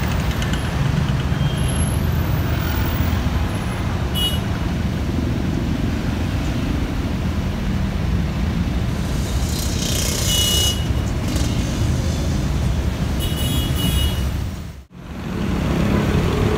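Steady low rumble of large diesel bus engines and road traffic. Twice in the second half comes a short hiss, likely air brakes. The sound drops out briefly near the end.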